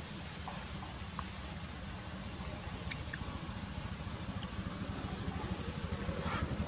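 A small engine running nearby with an even low throb that grows louder toward the end, with a sharp click about three seconds in.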